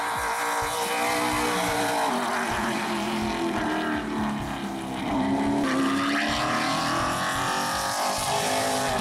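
Ford Mustang Super Late Model race car's V8 engine running hard on track. Its pitch drops about two seconds in, then climbs again from about five seconds and gets louder.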